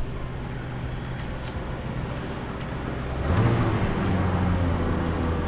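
A car engine hums steadily. About three seconds in, a louder engine starts up and settles into a steady idle.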